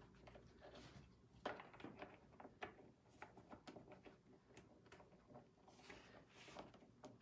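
Near silence with faint, scattered clicks and rubbing of plastic: a filter being fitted inside a clear plastic water tank by hand.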